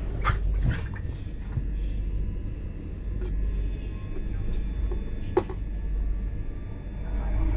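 Interior running noise of a Class 357 Electrostar electric train: a steady low rumble with faint high steady tones. A few sharp clicks and knocks sound over it, the loudest about five seconds in.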